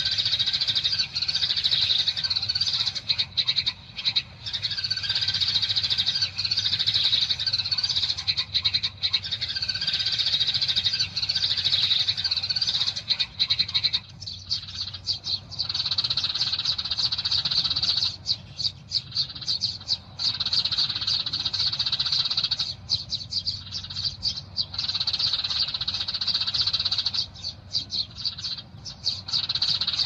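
A flock of small birds chirping in a dense, continuous chatter, with a few brief pauses in the second half.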